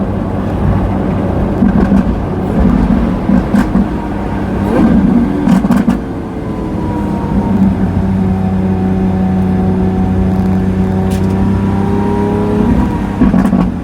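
Lamborghini Aventador S V12 running through a Power Craft aftermarket exhaust. For the first six seconds or so it surges unevenly with a few sharp pops. It then settles into a steady drone whose pitch rises slowly.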